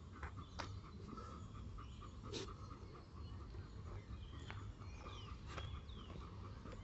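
Dogs stirring close by: scattered small clicks and rustles over a steady low rumble of wind, with a few short falling bird chirps in the second half.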